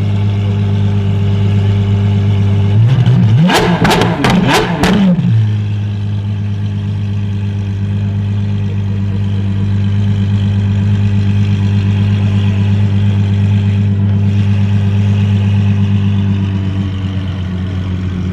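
Apollo Intensa Emozione's naturally aspirated V12 idling with a steady low drone, broken about three seconds in by a quick burst of three or four sharp throttle blips. It eases a little near the end as the car rolls away.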